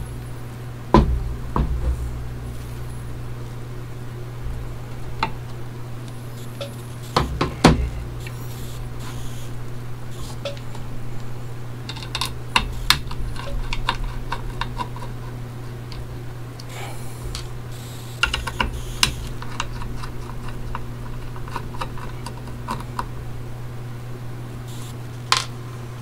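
Small clicks and knocks of a hard drive's metal base being turned over, set down on a desk and touched by fingers, the sharpest about a second in and at about seven and a half seconds, over a steady low hum.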